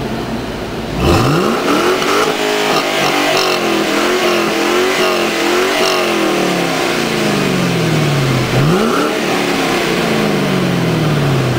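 Ford Mustang GT's 4.6-litre V8 exhaust being revved: a sharp rev about a second in, held and blipped for a few seconds, then falling slowly back, with a second quick rev near the end that winds down slowly.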